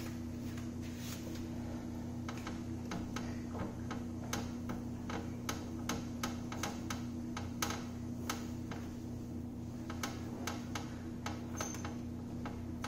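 Light, irregular clicks, one to three a second, from a Honda TRX400EX rear axle being wiggled by hand, the play in its loose rear axle bearing carrier knocking. The owner puts the wobble down to a worn carrier. A steady low hum runs underneath.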